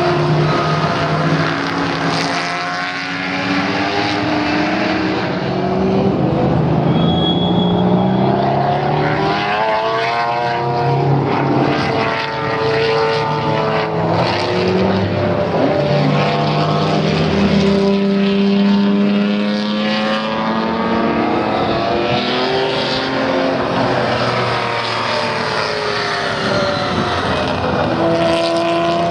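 1977 Broadspeed Jaguar XJ12 Coupe's race-tuned 5.3-litre V12 running loudly under load. The engine note climbs and falls several times as it revs.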